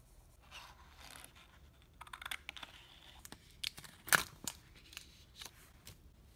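A sheet of sketch paper being handled: soft rustling at first, then a run of sharp crackles and clicks, the loudest about four seconds in.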